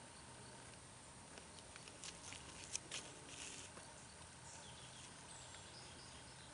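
Quiet handling of a small plastic wind-checker puffer bottle: a few small clicks and taps, the sharpest about halfway through, followed by a brief soft hiss as it is squeezed.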